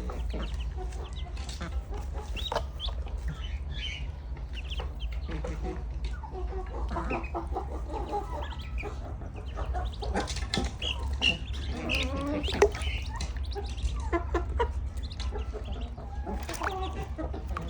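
Domestic chickens clucking as a flock, with many short overlapping calls, over a steady low hum. A single sharp knock stands out about twelve and a half seconds in.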